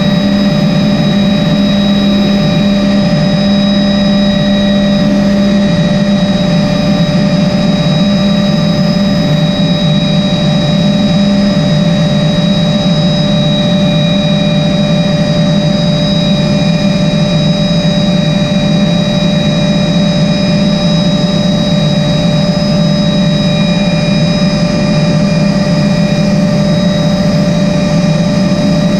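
MD 520N NOTAR helicopter in cruise flight, heard inside the cockpit: a steady low drone with the high whine of its turboshaft engine held at constant pitch.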